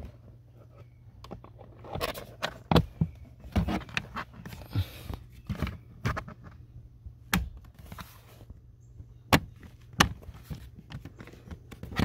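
Plastic lower dash trim panel of a 2012 Toyota Prius V being pressed back into place: scattered sharp clicks and knocks as its retaining clips snap into their holes and the panel is handled.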